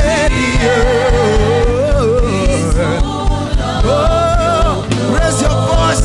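Live gospel worship music: a lead singer's voice sliding and wavering through long held notes over a band with a steady beat and bass.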